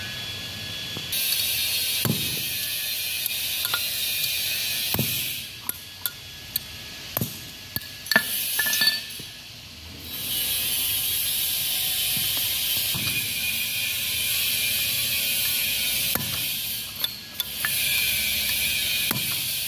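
A metal hammer knocking on the housing of an excavator's main hydraulic piston pump, about a dozen separate knocks at uneven intervals. A steady high hiss runs behind them and drops out for a few seconds in the middle.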